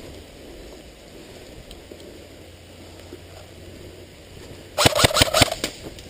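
An airsoft gun firing a quick string of about six sharp shots near the end, over a steady low background rumble.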